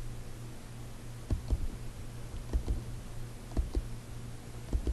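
Computer mouse clicking: several short clicks, mostly in close pairs, over a faint low steady hum.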